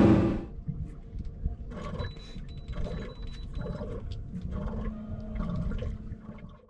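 Yamaha 300 outboard running at speed with its rushing wake, fading out within the first half second. After that a much quieter, uneven background of faint indistinct sounds.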